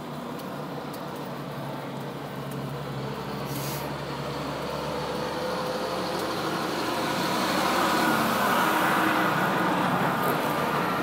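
Road traffic: a motor vehicle approaching and passing on the street, growing louder and loudest about eight to ten seconds in.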